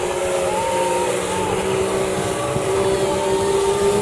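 Watercraft engines running at speed, a steady drone whose pitch drifts slowly, over a loud rush of wind and water.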